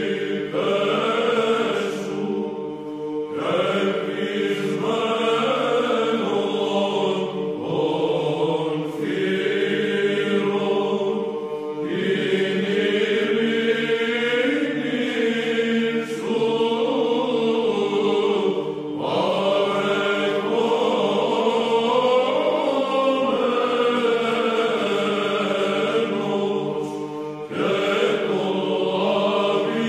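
Greek Byzantine choir singing Byzantine chant: a melody line moving over a steady held drone (the ison), in phrases broken by short pauses for breath.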